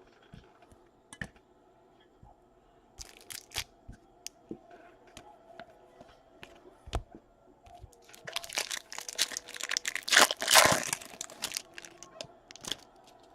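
Trading-card packaging being handled: scattered light clicks and taps, then several seconds of crinkling and tearing of wrapper or sleeve plastic, loudest about ten seconds in.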